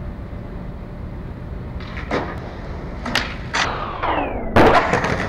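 Skateboard wheels rolling on concrete, then sharp knocks as the board is popped up onto a metal stair handrail, a falling scrape as it grinds down the rail, and a loud hard landing near the end.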